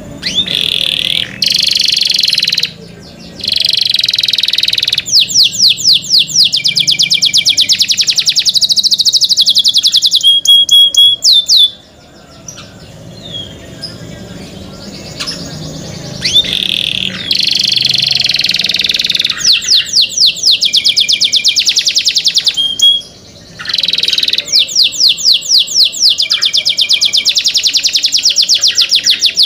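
Domestic canary singing loudly in long phrases of fast rolling trills and whistled notes. The song breaks off about twelve seconds in and starts again some four seconds later.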